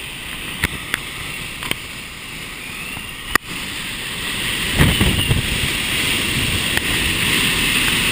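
Typhoon wind and rain blowing, a steady rushing noise. In the first few seconds there are a few sharp clicks and a knock from the camera being handled. From about five seconds in, gusts buffet the microphone and the noise turns louder, with a low rumble.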